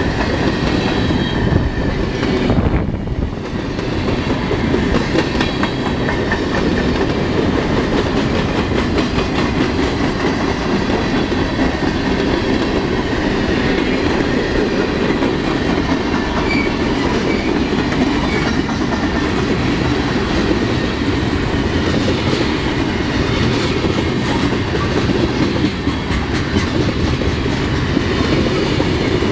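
Freight cars of a passing train rolling by close up, steel wheels clicking over the rail joints with a steady rumble.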